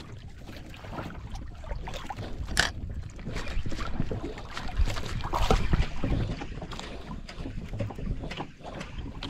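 Water slapping and splashing against the hull of a small drifting outrigger boat, with wind on the microphone and scattered knocks and clicks, one sharp click about two and a half seconds in. It is louder for a couple of seconds in the middle.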